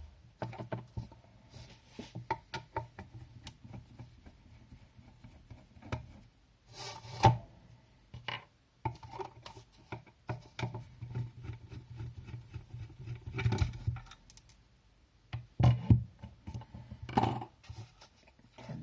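Screwdriver taking out the small screws that hold an electric fan's motor, and the plastic housing and motor being handled as they come apart: scattered clicks, scrapes and short knocks, with a few louder knocks.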